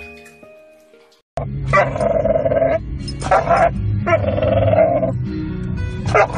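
A dog inside a moving car gives four long, loud barking calls, each about half a second to a second long, over the low rumble of the car. They begin about a second and a half in, after a fading chime of music.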